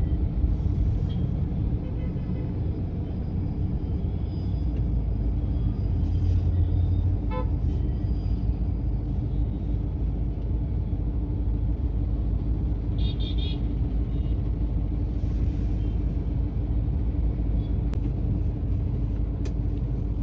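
Steady low rumble heard inside a car's cabin while it waits in traffic at a junction. Brief horn toots from nearby vehicles sound about a third of the way through and again a little past halfway.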